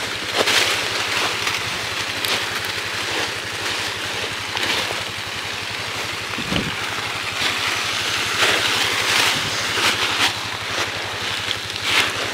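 Four-wheeler engine idling steadily, with crunching and rustling of dry leaves and brush now and then.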